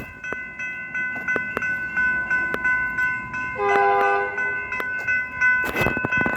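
Level-crossing warning bell ringing steadily as a train comes through the crossing, with one short train horn blast about four seconds in.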